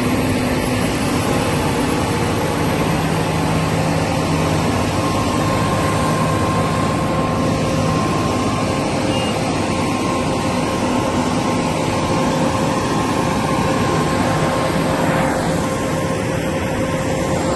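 Diesel engines of heavy tipper trucks running steadily under load as they tow a very heavy multi-axle trailer: a continuous broad rumble with a steady whine over it.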